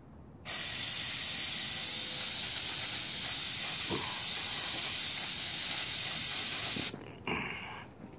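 Aerosol carb cleaner spraying in one long, steady hiss of about six seconds that cuts off sharply, then a short second spurt that fades.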